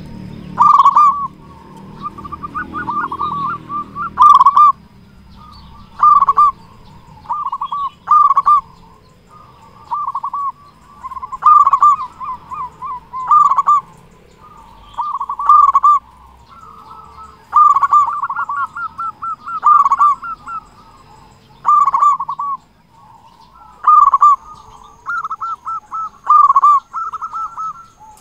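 Local zebra dove (perkutut) singing steadily: a loud cooing phrase about every one and a half to two seconds, with softer rapid warbling notes in between.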